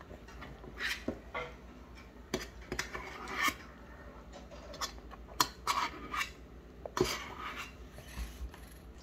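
A baby handling and drinking from a plastic straw cup, heard close up: irregular clicks, taps and short mouth smacks.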